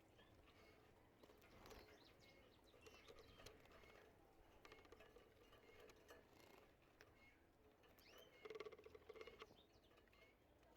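Faint canary chirps, short scattered calls, mixed with light clicks and pattering from the birds moving about, a little louder near the end.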